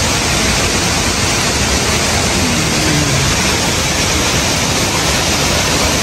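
Loud, steady rush of falling water from a waterfall, an even wash of noise with no breaks.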